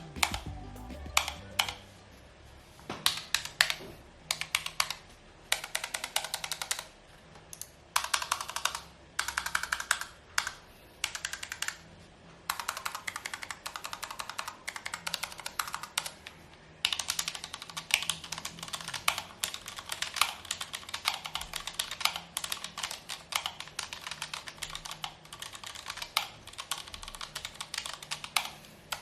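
Typing on a Keychron K1 low-profile mechanical keyboard with Gateron low-profile brown switches: runs of rapid key clicks broken by short pauses.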